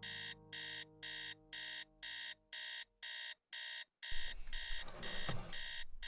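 Bedside digital alarm clock beeping in a steady, even rhythm of about two and a half beeps a second. From about four seconds in, bedding rustles as someone shifts in bed.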